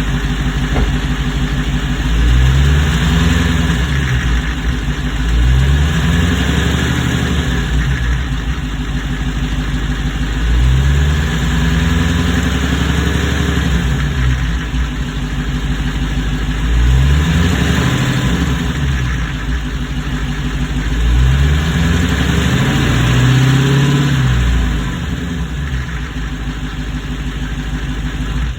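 Supercharged 6.2-litre HEMI V8 of a 2021 Hellcat idling and revved up and back down about five times. The owner has diagnosed the knock in this engine as rod knock.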